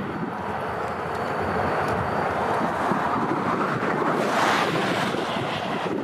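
Diesel freight locomotives rumbling as they approach out of sight, with wind buffeting the microphone. The noise swells briefly a little past four seconds in.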